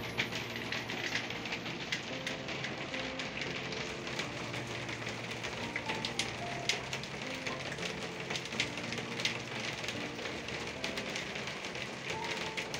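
Rain falling on a glass roof: a steady patter with many separate drop taps.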